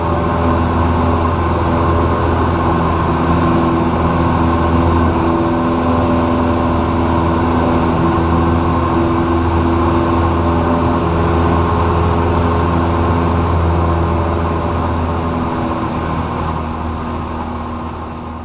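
Steady engine and propeller drone of a Cessna 172L's four-cylinder Lycoming engine in cruise, heard inside the cabin. It fades out over the last couple of seconds.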